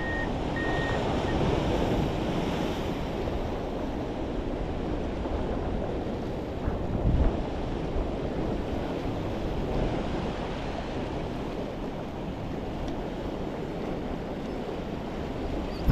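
Sea waves washing and churning against jetty rocks, a steady rushing wash with wind buffeting the microphone. A vehicle's reversing beeper beeps faintly a couple of times in the first second.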